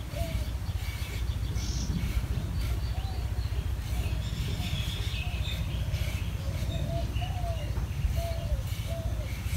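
Birds calling over and over in short rising-and-falling notes, with a few higher chirps, over a steady low rumble.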